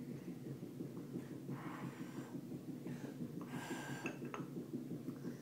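Small children breathing and slurping noisily into cups as they eat ice cream from them. The sounds come in two short bursts, about one and a half and three and a half seconds in, over a steady low hum.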